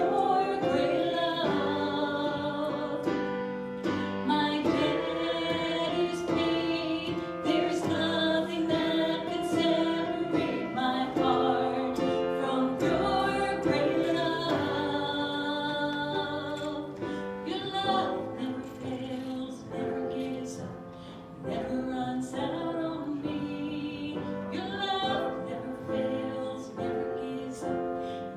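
Worship song in a church service: voices singing with instrumental accompaniment.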